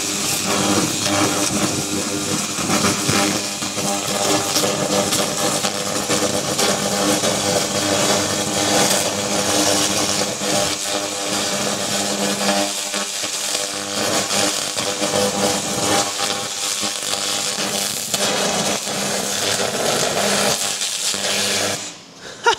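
xTool MetalFab laser cleaner burning glue off a car wing panel: a loud, steady crackling buzz with a hum under it. It cuts off suddenly near the end.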